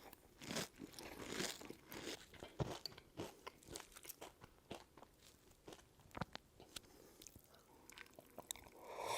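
Close-up crunching and chewing of crisp food, a string of irregular short crunches, as in an ASMR eating clip.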